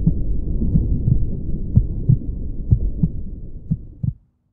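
Heartbeat sound effect: low paired thumps about once a second over a steady low rumble. It fades out and stops shortly before the end.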